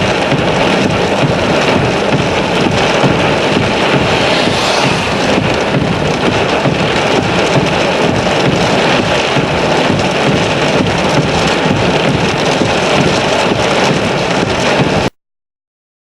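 Heavy rain pouring in a severe thunderstorm: a loud, steady hiss that cuts off suddenly near the end.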